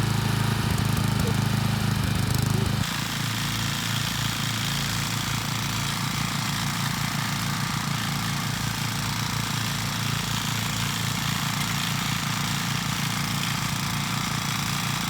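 Rototiller's small gasoline engine running steadily. About three seconds in it drops a little in level and settles into a low, even throb.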